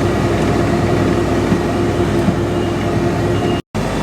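Tractor engine running steadily under load, heard from inside the cab, with a steady hum and rattling; the sound cuts out completely for a moment near the end.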